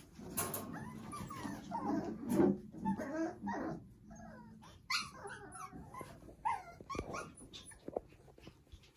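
Several Havanese puppies whimpering and yipping in short, high, wavering calls, mixed with a few sharp clicks.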